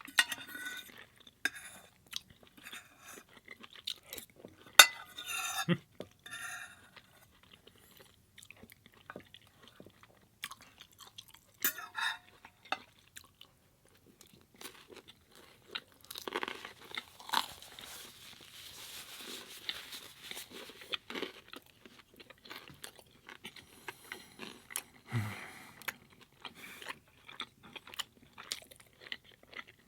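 Close-miked eating sounds: chewing and crunching of food with wet mouth clicks, and a denser run of crackly chewing noise in the middle.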